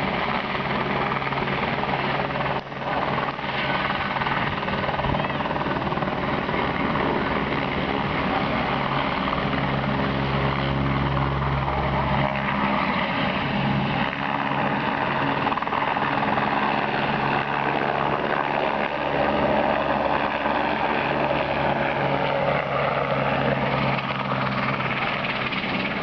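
Helicopter's rotors and engine running loudly and steadily as it takes off and flies low past.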